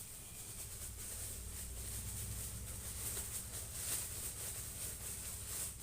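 Steady low hum and high hiss of background noise, with no distinct event.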